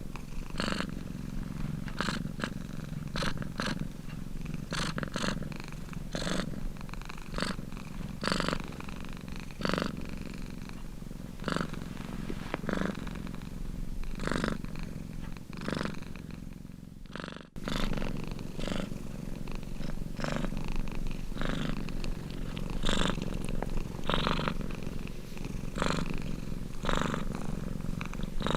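Domestic cat purring steadily, the purr pulsing with each breath. There is a brief sudden dropout about two-thirds of the way through.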